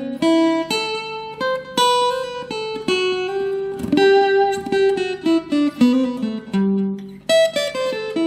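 A 40-inch linden-body Future FAG006C acoustic-electric guitar played fingerstyle through a Cool Music AC 20 amplifier: a melody of single plucked notes mixed with short chords, some notes left to ring.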